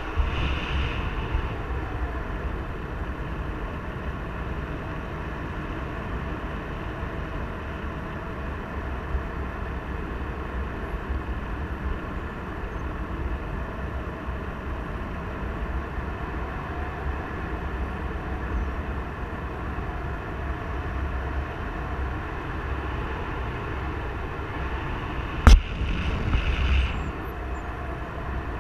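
Airflow buffeting the microphone of a paraglider pilot's harness-mounted camera in gliding flight: a steady, deep rumbling rush. A single sharp click about 25 seconds in is the loudest moment, followed by a brief hissier gust.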